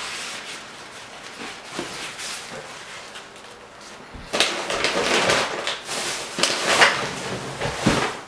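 A paper towel being handled and crumpled: soft rustling at first, then louder, busier crinkling from about four seconds in.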